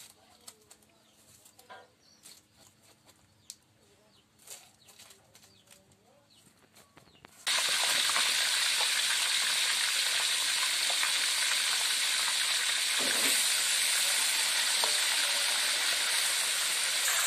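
Faint scattered taps and scrapes of a knife cutting a fish on a wooden board. About seven and a half seconds in, it cuts abruptly to a loud, steady sizzle of whole fish deep-frying in hot oil in a wok.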